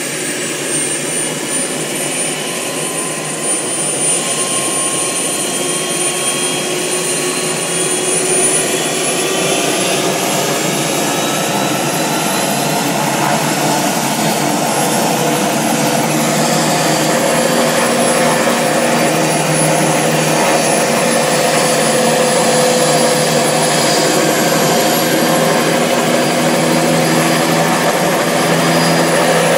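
Bell 206 JetRanger's Allison 250 turboshaft running on the ground with the rotor turning: a high turbine whine over a lower steady hum. The whine steps up in pitch about eight seconds in, and the sound slowly grows louder.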